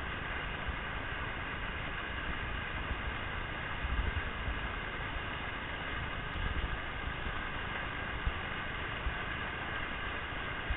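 Steady rush of whitewater from a river standing wave, with brief low rumbles about four and six and a half seconds in.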